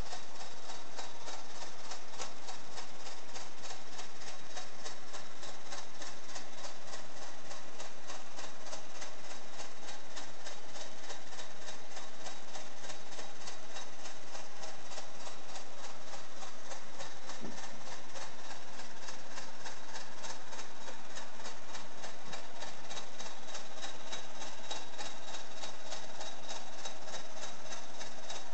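Meccano model Corliss steam engine running, its metal rods, linkages and spinning flywheel making a fast, even mechanical clatter.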